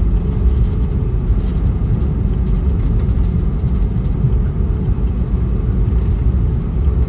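Steady low rumble inside the cabin of an Airbus A321neo taxiing after landing, with a faint steady hum over it.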